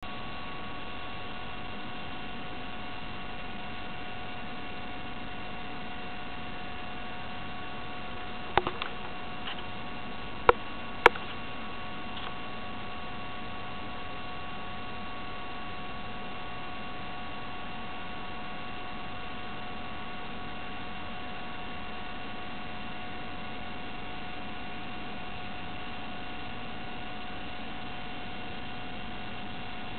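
Steady electrical hum with several thin steady whining tones and a hiss beneath, broken by a few sharp clicks about nine and eleven seconds in.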